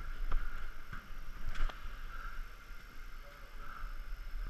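Low rumble of handling noise on a head-mounted action camera's microphone, with two light clicks, one just after the start and one about a second and a half in, as the model plane is lifted from its stand.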